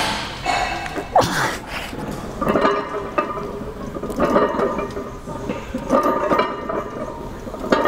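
A man straining and grunting through heavy reps on a plate-loaded chest press, with a strained effort about every one and a half seconds, four times.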